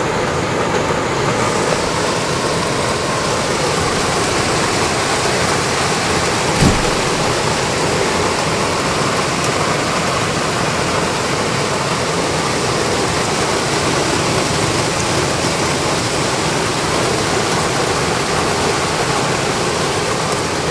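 Steady rain falling on trees and ground, an even hiss with no let-up, with a single thump about six and a half seconds in.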